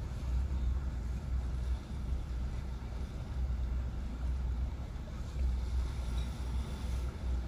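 Wind buffeting the microphone: a low, uneven rumble that swells and dips in gusts, with a faint hiss above it.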